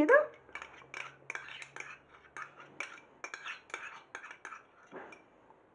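A spoon scraping and tapping against the inside of a small cup, spooning out country ghee onto rice: a run of short, irregular clicks and scrapes.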